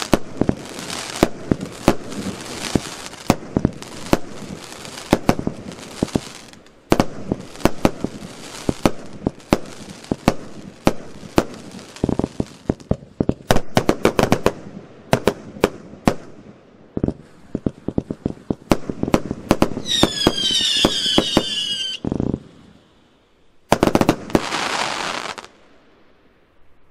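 A fireworks battery (cake) firing: a rapid run of launch thumps and aerial bursts over a crackling hiss. About twenty seconds in, a whistling effect glides slightly down in pitch, and the shots thin out near the end.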